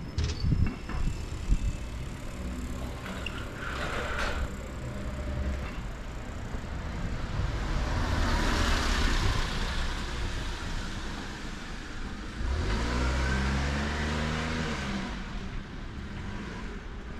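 Street traffic: a car passes, its tyre noise swelling and fading about halfway through, then a few seconds later a vehicle engine pulls away with its pitch rising. A few sharp knocks sound in the first few seconds.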